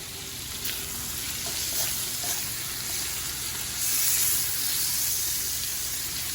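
Meat frying in a pot with a steady sizzle, growing louder about four seconds in, with a few light clicks of a utensil as it is stirred and checked. The meat is still cooking and not yet done.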